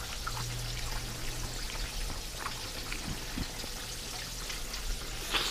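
Chicken pieces deep-frying in oil in a cast iron pan: a steady sizzle with fine crackles, over a faint low hum.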